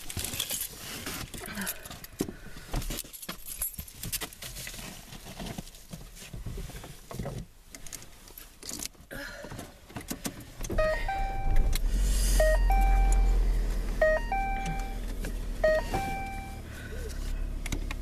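Keys and handling noises, rustles and clicks, then about 11 seconds in a car engine starts and runs with a steady low rumble. Over it a short electronic chime of a few notes repeats.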